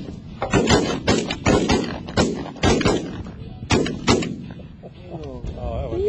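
A volley from several hunters' shotguns: about ten shots in quick, uneven succession over the first four seconds, some close together.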